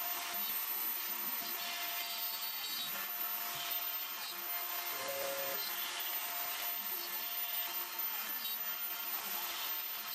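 Hobby CNC router spindle running steadily as its bit mills grooves through a wooden panel and cured epoxy inlay: a constant whine with chip-cutting noise.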